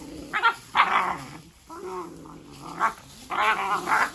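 Dalmatian puppies play-fighting, growling and barking in several short bursts.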